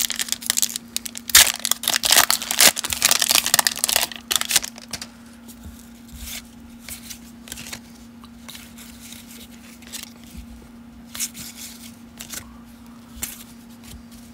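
Foil wrapper of a 1992 Upper Deck baseball card pack crinkling and tearing open during the first few seconds, then the cards being slid and flicked through one at a time in soft, scattered clicks. A faint steady hum runs underneath.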